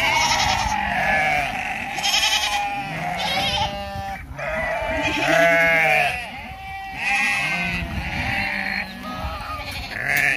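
Many goats bleating, with loud, quavering calls overlapping one after another and barely a pause.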